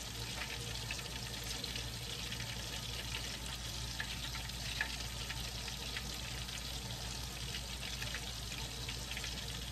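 Hot oil sizzling steadily in a cast-iron skillet as battered fish fillets and spoonfuls of hush puppy batter fry, with occasional small crackles. A faint steady low hum sits underneath.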